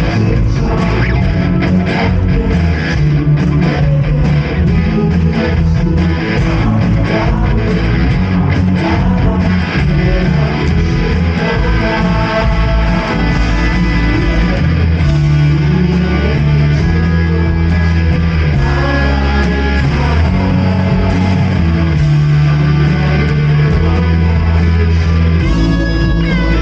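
Live praise band playing: electric guitar over bass guitar and drums, with a strong, full sound.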